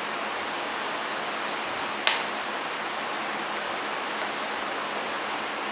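Steady, even background hiss with one sharp click about two seconds in.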